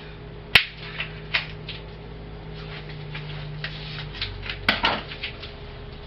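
Kitchen clatter: scattered knocks and clinks of dishes and utensils. The sharpest comes about half a second in and a cluster follows near five seconds, over a steady low hum that drops in pitch about four seconds in.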